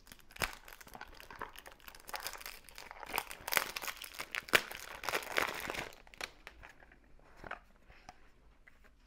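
Crinkling and rustling of packaging, with sharp clicks and snaps, as a small cardboard box of earrings is opened and the earrings unwrapped by hand. Busiest in the middle, thinning out near the end.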